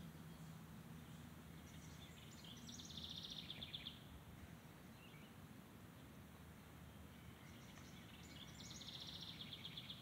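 Faint outdoor background noise with a songbird singing twice, each song a rapid trill of about two seconds, the first about two seconds in and the second near the end.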